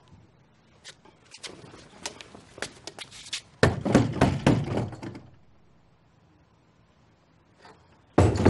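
Knocking and banging on a wooden door: light raps at first, then heavy pounding a few seconds in. After a pause the pounding starts again just before the end.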